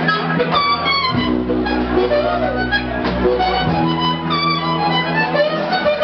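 Live blues-rock band: an amplified harmonica, cupped in both hands, leads with notes that slide in pitch over electric guitar, sustained low notes and drums.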